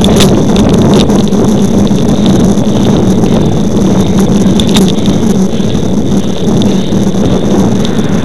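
Loud, steady rush of wind on the microphone and tyre noise from a road bicycle rolling along asphalt, with scattered light clicks and rattles.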